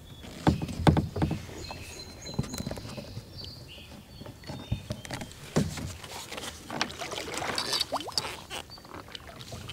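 Kayak being paddled away from a bank: the paddle dips and splashes in the water, with irregular knocks, the loudest about a second in.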